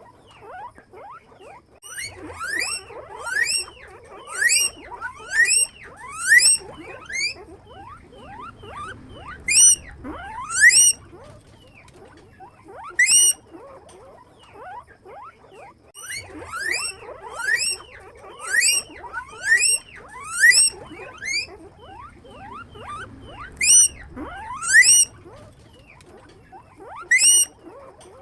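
Guinea pigs wheeking: loud, rising whistled squeals in quick runs of three to six, with softer squeaks in between.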